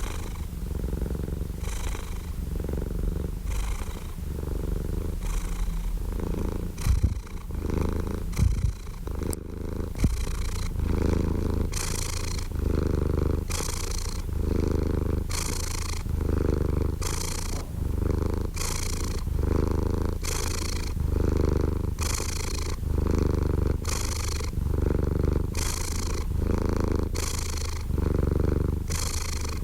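Domestic cat purring close up: a continuous rumble that swells and eases with each breath, about once a second. A couple of sharp clicks stand out about seven and eight and a half seconds in.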